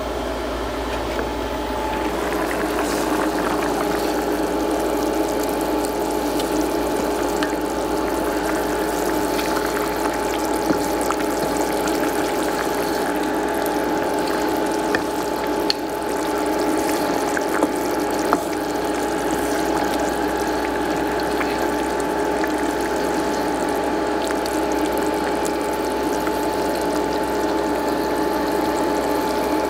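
Pot of curry goat stew with vegetables simmering on the stove, a steady bubbling crackle with a constant hum underneath. There are a few light knocks about halfway through.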